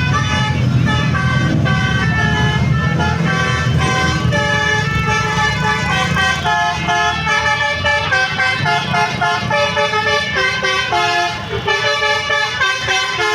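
Basuri telolet bus horn playing a melody: a string of held notes stepping from pitch to pitch every fraction of a second, over a low engine rumble.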